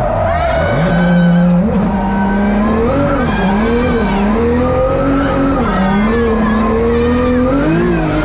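Drift car's engine revving up and down hard, the pitch rising and falling again and again as the car is held in a slide, with tyres squealing.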